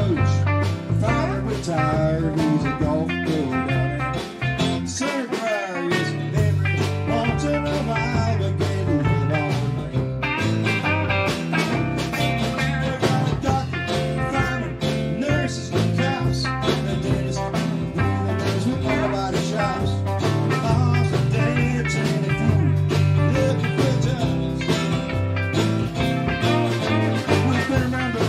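A live rock band (electric guitar, archtop guitar, electric bass and drum kit) playing an instrumental passage with no singing. The bass drops out briefly about four seconds in, under bending guitar notes, then the full band comes back in.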